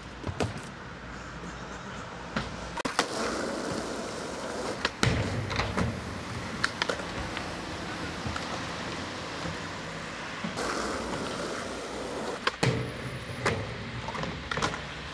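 Skateboard rolling on concrete with a steady wheel rumble, cut by a series of sharp clacks as the board is popped and lands on the concrete and the box. The loudest clacks come about five seconds in and again near the end.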